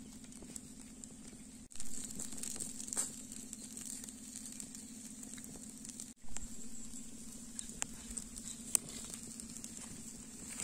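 Wood fire crackling under chicken skewers grilling over open embers, with scattered sharp crackles and pops over a steady high-pitched drone and a low hum.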